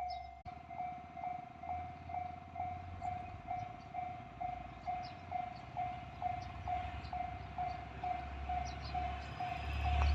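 Japanese railway level-crossing warning bell ringing steadily, about two strikes a second. A low rumble grows louder near the end as an Ibara Railway IRT355 diesel railcar approaches.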